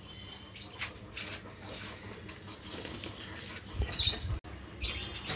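Scuffling and light patter from a fight with a rooster, with a dull thump a little before four seconds in and another shortly after.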